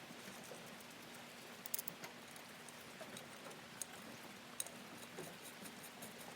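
Faint, scattered clicks and taps of small metal parts, a nut and bolt being handled and fitted, over a low steady hiss.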